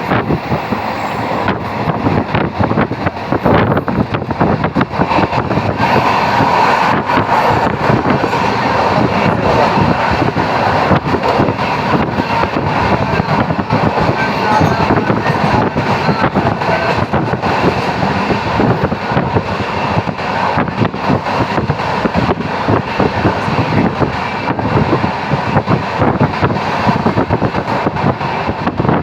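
Steady, loud, fluttering rumble of a moving vehicle, with rattle and wind noise throughout.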